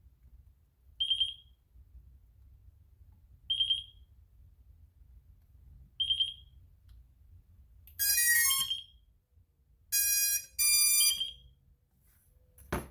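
FrSky Taranis X9D+ transmitter beeping once every two and a half seconds while in bind mode. About 8 s in, the quadcopter's motors play a rising startup tune, followed by two longer pitched beeps, the sign that the quad has powered up and bound to the radio. A sharp click comes near the end.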